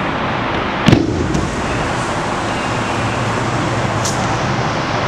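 A sharp thud about a second in, a body landing on the grappling mat during a throw, with a couple of fainter slaps later, over a steady hiss of room noise.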